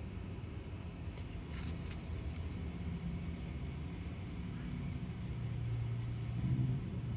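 A low, steady rumble with a low hum that grows louder about five and a half seconds in.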